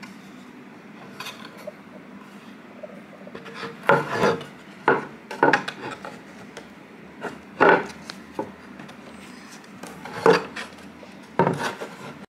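Wooden keepsake box being handled: the lid lifted off and a photo album slid out, with several wooden knocks and rubbing scrapes, the loudest about four, eight and ten seconds in.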